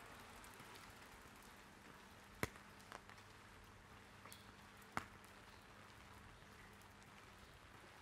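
Light rain pattering faintly on an umbrella canopy, with a few heavier drops landing sharply, the loudest two about two and a half seconds apart.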